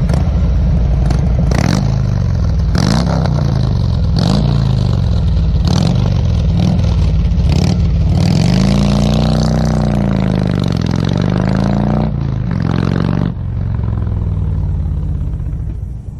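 Motorcycle engine revving up and down over and over, with sharp clicks between the revs. About two-thirds through it makes one longer rise and fall in pitch, then runs at a steadier pitch near the end.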